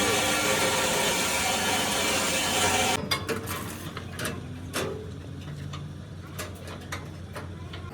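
A power tool running steadily, cutting off suddenly about three seconds in, followed by scattered metallic clinks and knocks of tools and parts being handled.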